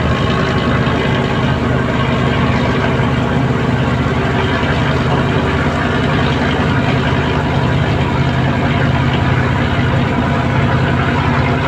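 Large fishing boat's inboard engine running loudly at a steady speed, a constant deep hum with no change in pace.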